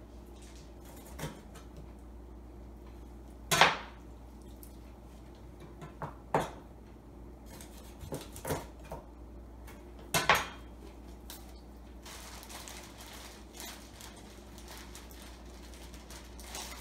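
Chinese cleaver chopping chicken wings on a cutting board: about five sharp chops a couple of seconds apart, the loudest about three and a half seconds in. From about twelve seconds in comes a soft rustling of a plastic zip-lock bag.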